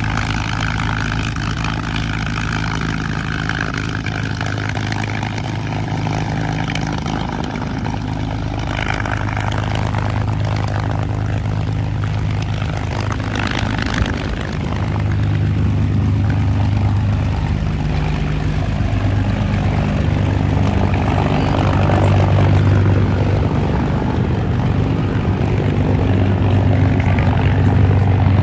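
P-51D Mustang's Packard Merlin V-12 engine running steadily with its propeller turning, a deep even drone that grows louder about halfway through.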